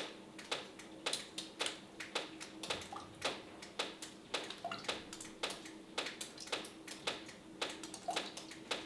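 Irregular sharp clicks and taps, a few a second, over a faint steady hum.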